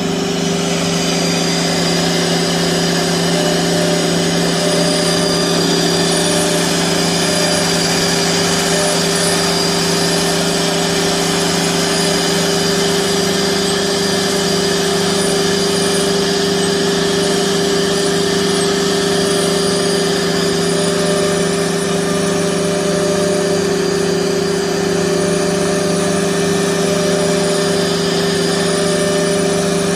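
CNC router cutting a board: its 4.5 kW HQD air-cooled spindle running at steady speed while the dust collector draws through the hose. A loud, steady hum with several held tones and a faint high whine, unchanged throughout.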